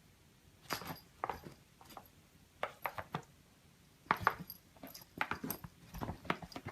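A series of short, irregular clicks and taps in a small room.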